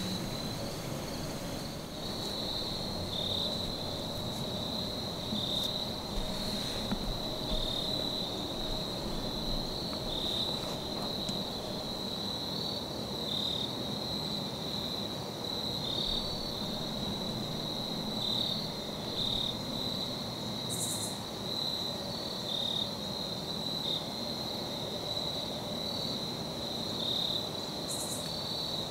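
Steady high-pitched chorus of crickets trilling, with a slightly lower chirp breaking in every second or two, over a faint even hiss.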